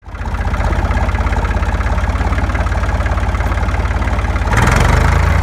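A small tractor engine running at idle with a fast, even chugging beat. About four and a half seconds in it picks up speed and gets louder.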